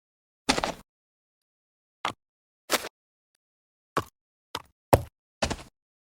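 Giant insect footstep sound effect: a series of about seven short, irregularly spaced impacts, some sharp and some a little longer, with dead silence between them.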